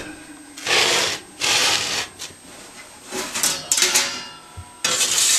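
Several short bursts of scraping and rubbing from handling at a home oven, the loudest near the end.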